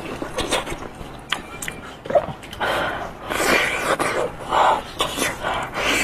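Close-miked eating sounds: repeated breathy puffs of a person blowing on a hot piece of sheep's head to cool it, with wet mouth sounds, growing louder and more frequent from about halfway through.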